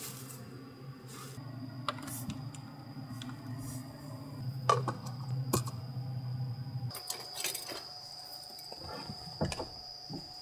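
Light clicks and rustles of artificial plant vines being handled and hung up, over a steady low hum that stops abruptly about seven seconds in. After that a faint steady high-pitched tone remains, with a few more clicks.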